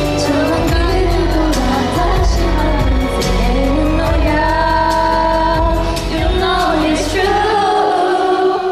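A woman singing a pop song over its backing music; the low bass drops out near the end.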